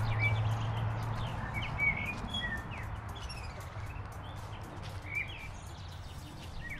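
Small birds chirping in many short, quick calls over a steady background noise.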